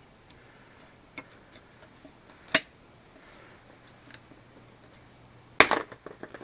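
A few sharp hard-plastic clicks and knocks as a Jeep Wrangler JK's plastic grille and its turn-signal lamp are handled and worked loose, with a single sharp click midway and a louder cluster of knocks near the end.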